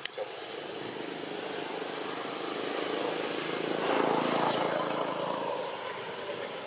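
Engine noise of a passing motor, swelling to its loudest about four seconds in and then fading, with a sharp click at the very start.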